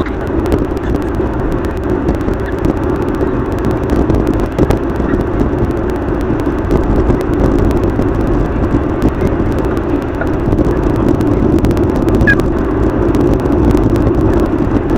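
Car driving noise picked up by a dashcam inside the car, sped up thirty times, so the road and engine sound becomes a steady, jittery rush dotted with many quick clicks.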